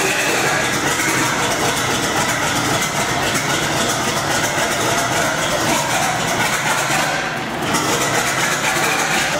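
Gardner 6L3 six-cylinder diesel engine on a test stand running just after a cold start, a steady rapid run of firing pulses, with a short dip in loudness about seven seconds in.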